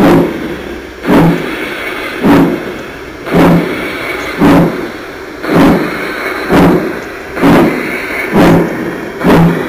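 Steam-chuff sound from the Massoth sound module of an LGB Mallet model locomotive, played through its loudspeaker: evenly spaced chuffs about one a second, with a steady hiss between them.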